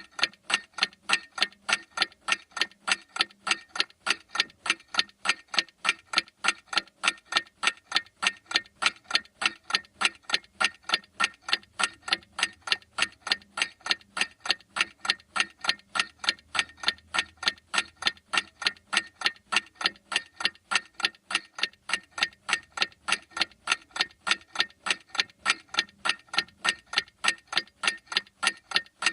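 A clock ticking steadily, about two even ticks a second.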